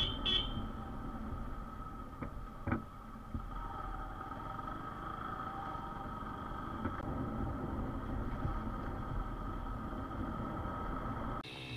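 Motorcycle running at a steady cruise, its engine and road noise making an even rumble, which breaks off abruptly near the end.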